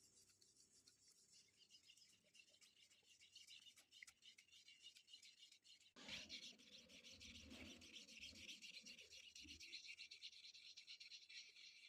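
Water pen rubbing back and forth on the paper of a magic water colouring book: a faint, fine scratching. About halfway through there is a dull handling bump, and after it the scratching is louder.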